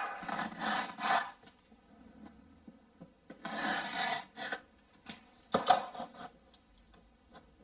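A blade cutting through GIB plasterboard in rasping, scraping strokes. The strokes come in three bouts: several at the start, more about three and a half seconds in, and a sharp one near six seconds.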